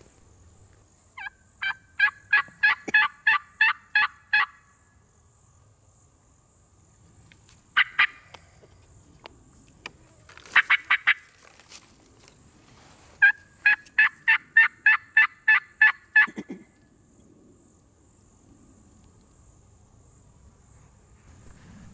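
Turkey call sounding hen turkey yelps, close and loud: two long runs of about a dozen evenly spaced yelps, with a short note and a quick cluster of faster notes between them.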